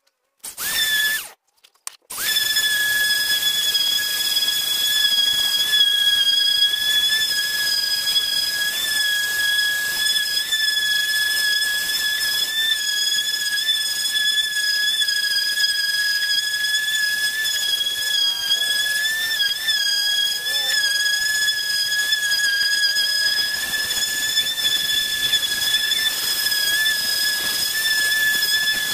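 Electric orbital sheet sander running, a steady high-pitched motor whine over the hiss of its pad scrubbing a plywood surface. It starts with a brief burst near the beginning, then runs continuously from about two seconds in.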